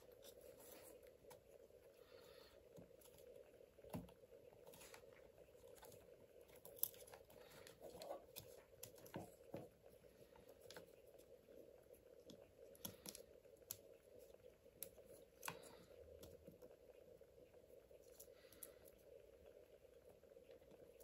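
Near silence with scattered faint clicks and rustles from an old fan being taken off an RC car's electronic speed controller, over a steady faint hum.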